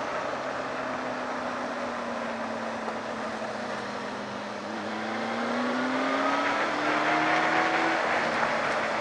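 Honda Hornet 600's inline-four engine running at a steady cruise, then rising in pitch and getting louder as it accelerates about halfway in, with wind rushing past.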